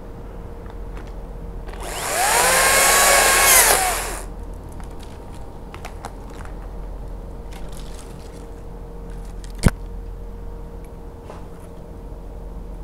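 Makita top-handle battery chainsaw run for about two seconds, its whine rising as it spins up, holding, then falling away as the trigger is released. A single sharp click comes later.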